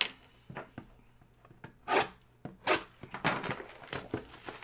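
A plastic-wrapped cardboard trading-card box knocked down on a wooden table and handled, then its shrink wrap torn and crinkled in several short bursts.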